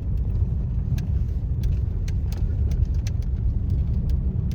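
Truck driving: a steady low rumble of engine and tyres, with scattered light clicks and rattles throughout.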